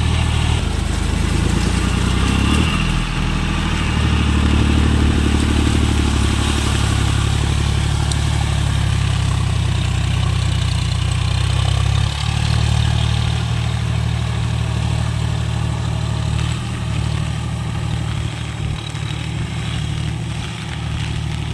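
John Deere tractor's diesel engine running steadily, its engine note stepping to a different speed a couple of times.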